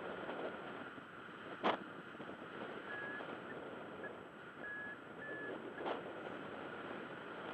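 Wind rushing steadily over the microphone of a camera carried on a paraglider in flight, with a sharp click about two seconds in and a few faint short high beeps in the middle.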